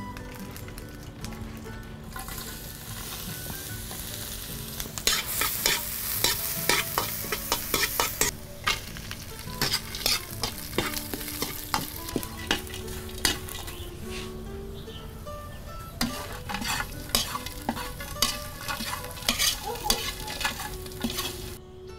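Stir-frying in a wok: food sizzling while a metal spatula scrapes and clacks against the pan. The strikes start about five seconds in and come thick and fast, then again in clusters later on.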